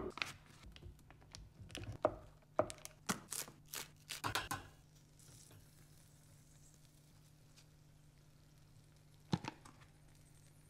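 Food-preparation sounds on a wooden board: a quick run of sharp taps and knocks in the first half, then near quiet with one more tap near the end.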